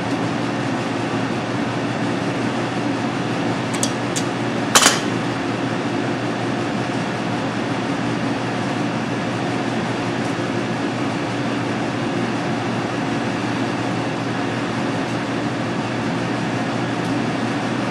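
Steady fan-like hum of room ventilation. Two faint clicks come near four seconds in, then a single sharp knock just before five seconds.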